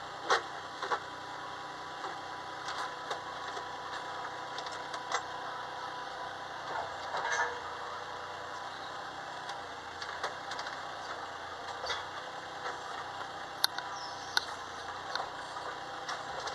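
Ride-on play excavator's motor running steadily, with scattered clicks and knocks as the controls are worked and the arm and bucket move.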